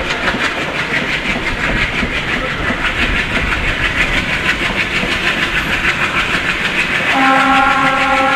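Passenger train hauled by a WDG-3A diesel locomotive running, heard from a coach: wheels clattering over the rails with a steady rushing noise. About seven seconds in, the locomotive's horn sounds a steady, multi-toned blast that is still going at the end.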